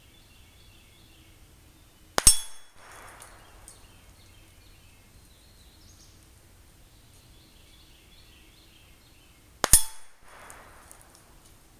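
Two rifle shots, about seven and a half seconds apart, each followed about half a second later by a softer, rough after-sound.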